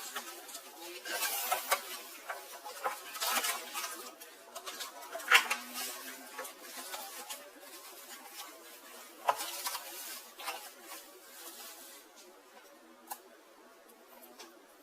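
Hands unpacking cookware: rustling and crinkling packaging with scattered clicks and knocks, the sharpest about five seconds in and another a few seconds later. It grows quieter over the last few seconds.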